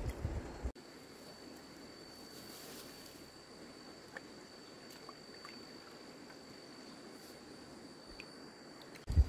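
A steady high-pitched insect drone at one pitch over faint background hiss. A low rumble of wind on the microphone fills the first moment, cuts off abruptly under a second in, and returns just before the end.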